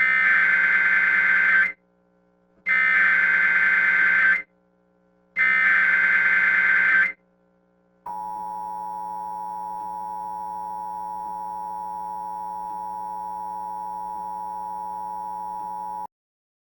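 Emergency Alert System header: three identical digital data bursts of about a second and a half each, then the steady two-tone attention signal held for about eight seconds and cut off suddenly. It marks the start of an emergency alert broadcast.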